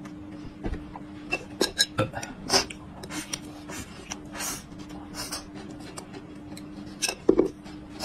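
Close eating sounds: chopsticks clicking against a plate of rice and wet mouth smacks while chewing, a string of short clicks and smacks with a louder knock near the end, over a faint steady hum.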